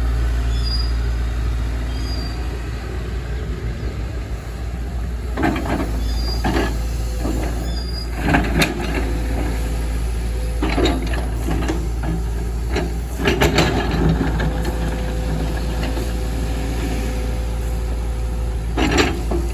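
Excavator's diesel engine running steadily, with a scattering of sharp clanks and knocks, several close together about halfway through.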